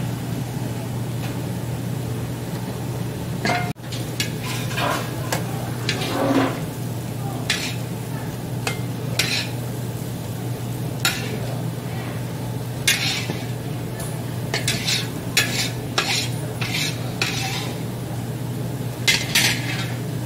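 Metal ladle stirring thick pork soup in a giant wide metal pan while it is thickened with starch slurry, scraping and clinking against the pan at irregular moments from about three seconds in, over a steady low hum.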